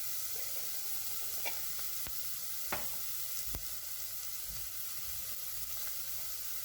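Onions and ginger garlic paste frying in coconut oil in a pressure cooker, a steady sizzle, with a few light knocks from stirring.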